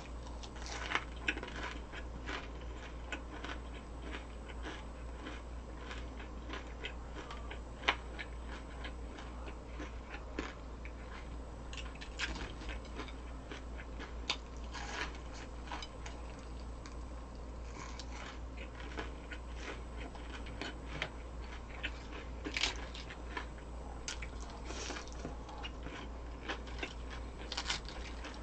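Close-up eating sounds: crisp fried food (breaded pork cutlet and hash brown) crunched with irregular bites and chewing, over a steady low hum.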